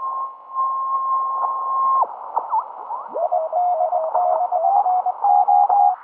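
Shortwave reception from a Drake 2B tube communications receiver. A steady carrier whistle sweeps down and away as the dial is tuned about two seconds in. From about three seconds a Morse code signal is keyed on and off as a tone over band hiss.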